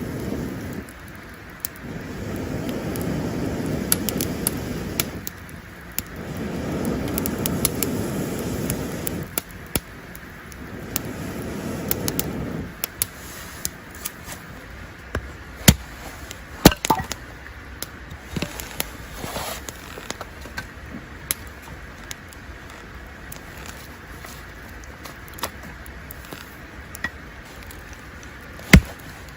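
Campfire crackling, with scattered sharp pops and snaps, a few of them loud. Over the first dozen seconds it is joined by four gusts of low rushing noise.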